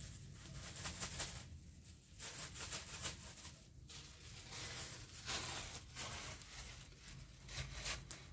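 Plastic bag crinkling and rustling as it is shaken out and handled, in irregular bursts.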